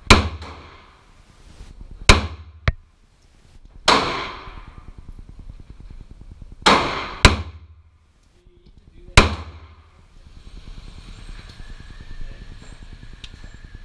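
9mm Smith & Wesson M&P Shield pistol fired about six times, irregularly one to three seconds apart, each shot echoing off the concrete range walls. From about ten seconds in, a steady whine of the electric target carrier running the paper target back.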